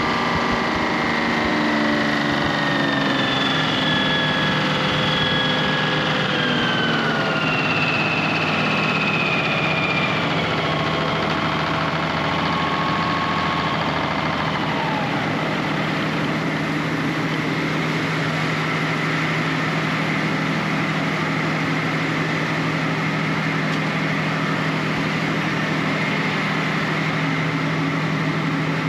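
An engine running steadily. Its pitch falls slowly over the first half, then holds level.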